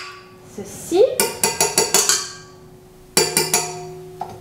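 Metal clinks and rattles of a stand mixer's wire whisk being unclipped and handled: a quick cluster of sharp clicks with short ringing about a second in, and another shorter cluster about three seconds in.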